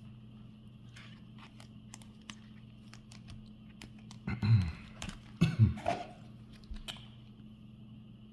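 Light, scattered clicks and taps of trading cards being handled and shuffled, with two brief louder sounds a little past halfway.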